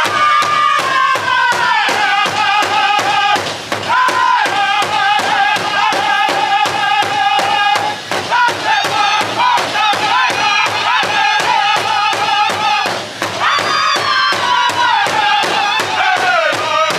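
Powwow drum group singing over a steady beat on a large drum; each sung phrase starts high and slides down in pitch. The voices break off briefly about three and a half seconds in and again near thirteen seconds, then come back in high.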